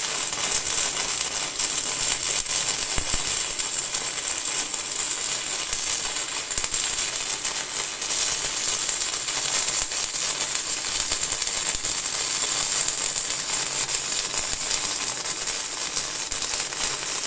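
Stick-welding (MMA) arc burning steadily with a continuous crackling hiss. A homemade twin electrode, two 2 mm rod electrodes welded at once at 160 A, is laying a cap pass on steel plate.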